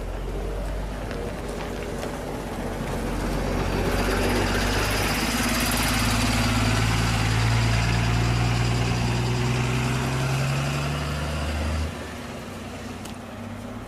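A large road vehicle's engine running steadily close by, with a rush of road noise; it swells from about four seconds in, holds, and drops away abruptly near the end, leaving a quieter low hum.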